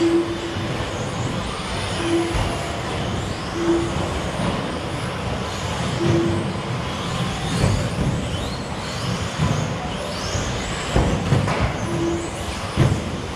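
A pack of 1/10 scale electric stadium trucks with 13.5-turn brushless motors racing on carpet: motors whining up and down with throttle, tyres scrubbing, and knocks as trucks land off jumps. Short electronic beeps sound now and then, with several in the first half and one near the end.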